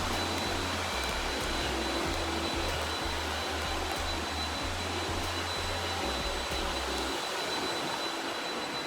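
Robot vacuum cleaner running with a steady hiss and a thin high whine, over music with a low bass line.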